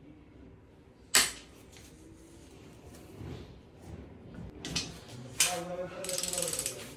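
Hand tools on the crankshaft main bearing cap bolts of a Range Rover 4.4 V8 diesel block during their final 90-degree angle tightening: a sharp metallic click about a second in, a few more clacks, then a run of rapid ratchet clicks near the end.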